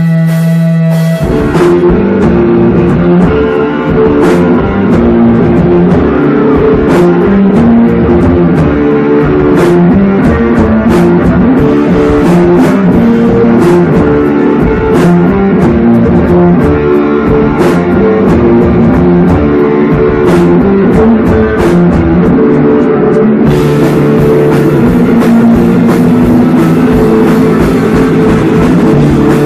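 Live rock band playing loud: electric guitar, bass guitar and drum kit. A held guitar chord gives way to the full band about a second in, and the cymbals get denser near the end.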